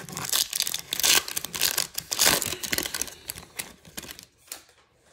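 Foil wrapper of a Topps Chrome baseball card pack being torn open and crinkled by hand: dense crackling for about three and a half seconds, then a few fainter crackles as the cards come out of the wrapper.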